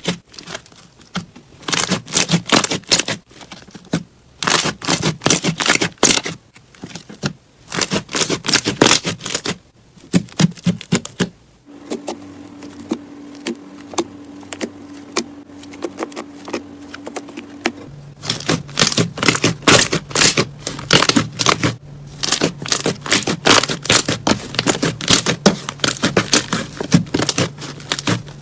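Slime being pressed and squished, its air bubbles popping in rapid crackling clicks that come in bursts. In the middle there is a quieter stretch of fainter popping over a steady low hum.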